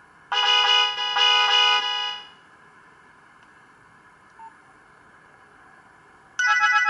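A Nokia 2865i playing its built-in MIDI tones: a short two-part chime of about two seconds just after the start, then a faint steady hiss, then another tone begins near the end.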